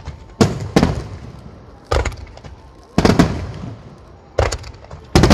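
Aerial fireworks shells bursting: about seven sharp booms at uneven intervals, each trailing off in a rumbling echo.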